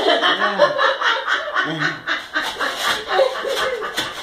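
Women snickering and laughing over repeated scraping strokes of a metal spatula and knife on a baking sheet, prying at cookies baked rock-hard.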